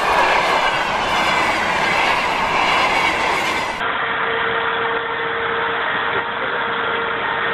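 A train with wagons and fire-train tank cars rolling past on the rails, a dense steady rumble and clatter of wheels. About four seconds in it cuts to a fire train's water cannon spraying, a steady rushing noise with an engine hum and a held tone.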